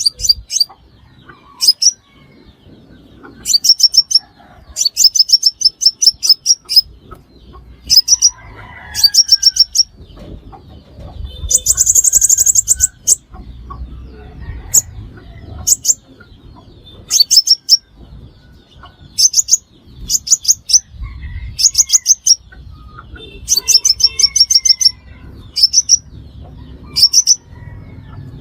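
A sunbird calling in quick bursts of sharp, very high chip notes, repeated every second or two, with one longer, higher trill about twelve seconds in. This is the call trappers play as a lure.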